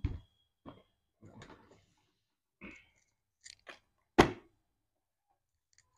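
Hands working on the plastic fairing of a kids' ride-on motorbike: scattered light clicks and rustles of plastic parts, then one sharp knock about four seconds in, the loudest sound.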